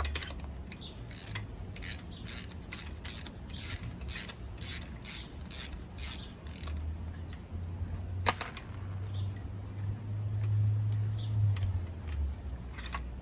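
Hand ratchet wrench clicking in a steady run of about two to three clicks a second for several seconds, then one sharp click, over a low hum.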